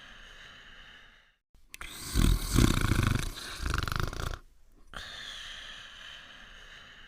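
Cartoon snoring sound effect for a sleeping dog: a high whistling breath fades out, then a loud rattling snore comes about two seconds in, and the whistling breath starts again about two seconds later.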